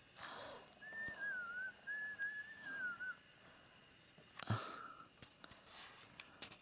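A person whistling a short wavering tune in two phrases, starting about a second in. A short breathy sound follows a little after four seconds in.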